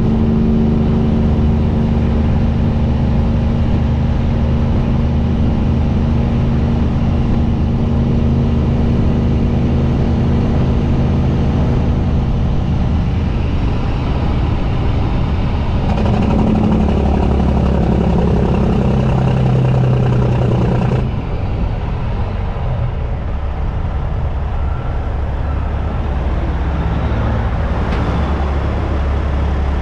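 Semi truck's diesel engine running under way, with road and wind noise on an exterior-mounted camera. The engine note changes about halfway through, and a little later the sound drops slightly in level.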